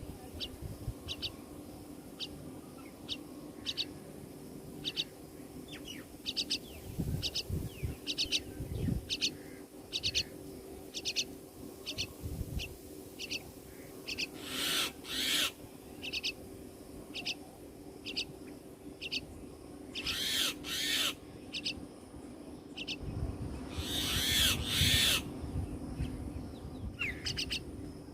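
Common myna nestlings giving harsh, raspy begging calls in three short bursts. Behind them, a bird repeats a short high note a little more than once a second throughout.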